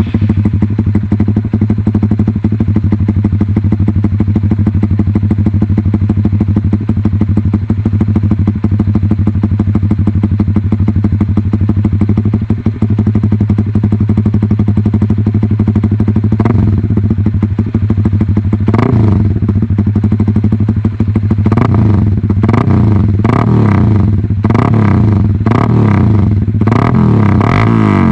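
Honda Supra GTR 150's single-cylinder engine running through a VMAX GP-type full exhaust with the silencer removed. It idles steadily at first, then is revved in short throttle blips from a little over halfway in, coming more and more often toward the end.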